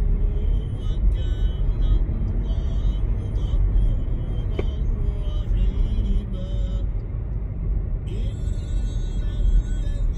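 Background music over the steady low rumble of a car driving at road speed, heard from inside the cabin.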